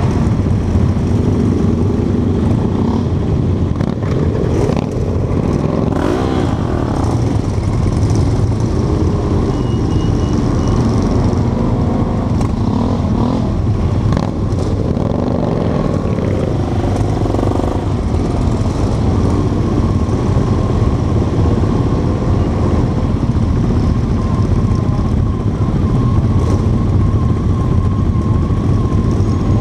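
A pack of cruiser motorcycles running at low speed, with the rider's own bike loud and close. Now and then an engine revs up and back down, about six seconds in and again midway.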